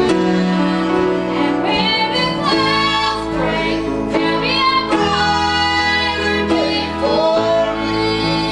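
A woman sings a Southern gospel song into a microphone, accompanied by grand piano and a band with a steady low bass line.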